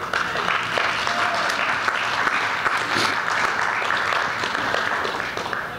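Church congregation applauding, many hands clapping together; it starts abruptly and dies away near the end.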